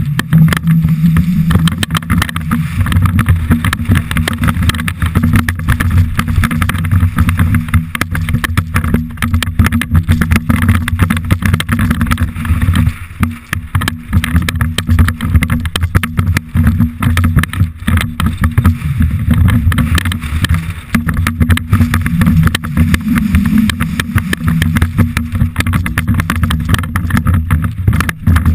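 Downhill mountain bike running fast over a loose, rocky trail: a constant dense rattle and clatter of tyres, chain and frame on the stones over heavy wind rumble on the camera microphone. The noise eases briefly about halfway through.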